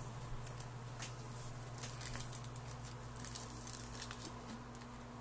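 Faint, scattered light ticks and rustles of trading cards being slid and flipped through by hand, over a steady low hum.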